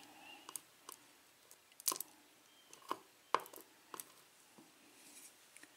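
Faint, irregular clicks and taps of small lock parts, the pin-tumbler pins and wafers of a disassembled cylinder lock, being handled and set down, about seven in all with the sharpest a couple of seconds in.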